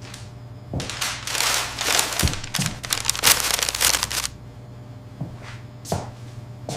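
Crisp crackling and crunching for about three and a half seconds, followed by a few single crackles, over a steady low hum.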